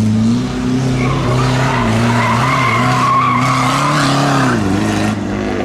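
Classic rally car's engine running steadily under load while its tyres squeal for about three and a half seconds, starting about a second in; the engine note dips briefly near the end.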